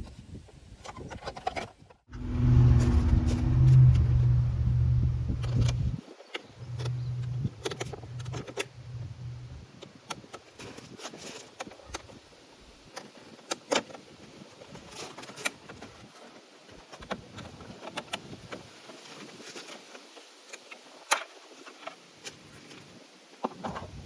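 Small clicks, taps and light rattles of hand tools and plastic trim as a car side mirror is taken apart. About two seconds in, a loud steady low hum starts and runs for about four seconds, then a quieter hum follows for about three.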